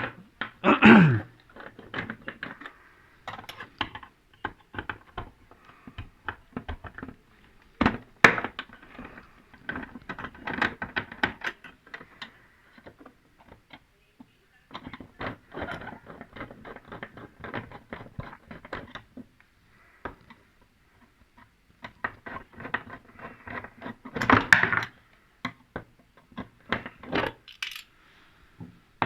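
Screws being taken out of the plastic back cover of a Toshiba LED TV: irregular small metallic clicks and clinks of the tool and loose screws, with a few louder knocks about a second in, about eight seconds in and near twenty-five seconds.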